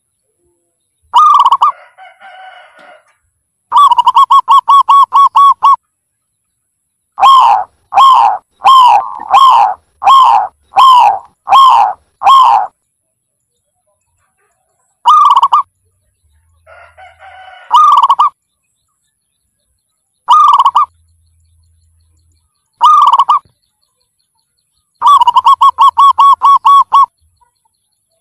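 Zebra dove cooing: a fast trill of about ten staccato notes, then a run of eight separate coos, then spaced single coos and a second fast trill. Twice, a fainter, rougher sound comes between the calls.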